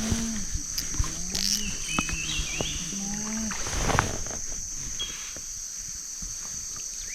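Jungle insects droning steadily at a high pitch, with scattered bird chirps and a few short, low calls in the first few seconds.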